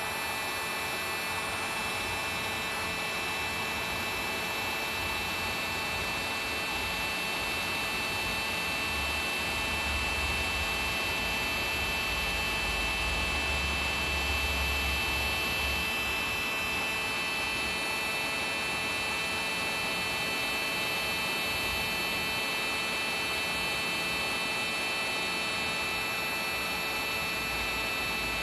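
Electric heat gun running steadily: a steady fan hum with a fixed whine. It is heating solder-seal butt connectors on spliced wires to melt their solder rings and shrink the tubing.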